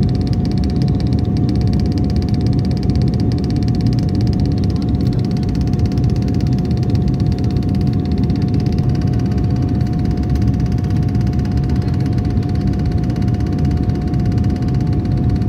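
Steady rumble of a passenger aircraft cabin in flight, with a constant whining tone held above it.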